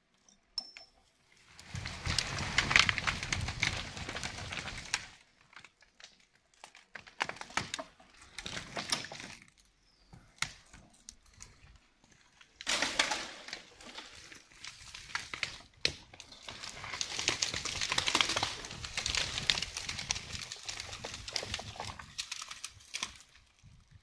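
Rustling and crackling of leaves, brush and twigs in logging slash, in irregular bursts of several seconds with many small snaps, as someone moves through the cut. No chainsaw is running.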